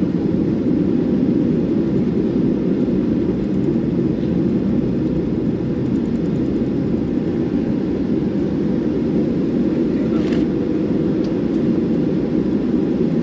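Steady cabin noise of a Boeing 737-800 taxiing: its CFM56 turbofans running at taxi power, heard as a low, even rumble through the fuselage. A brief click about ten seconds in.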